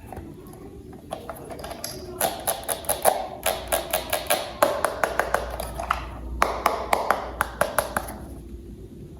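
A quick, uneven run of clicks and taps, thickest from about two to eight seconds in, from plastic toy parts being handled and fitted together.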